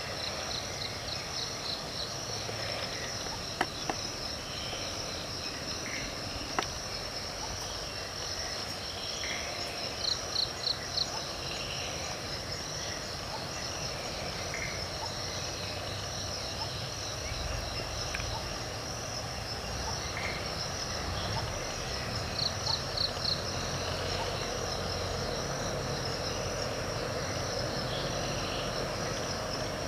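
Steady chorus of forest insects with a continuous high-pitched buzz. A short pulsed trill sounds three times, and there are a few sharp clicks within the first seven seconds.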